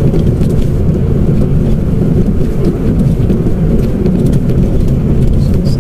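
Steady road and engine noise inside a Mitsubishi Mirage's cabin while driving along, a deep, even rumble with no change in pace.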